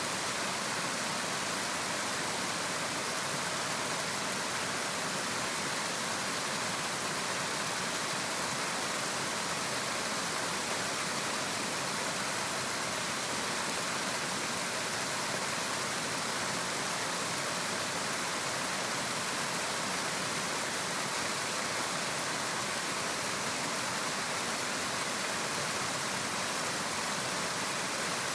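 River water flowing in a steady rushing hiss, mostly high-pitched, with no change in level.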